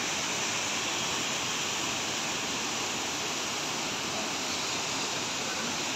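Waterfall: falling water rushing in a steady, unbroken roar.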